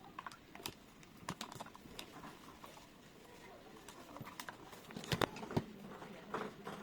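Irregular light clicks and taps of small metal lock hardware and hand tools being handled, with a few sharper clicks about five seconds in.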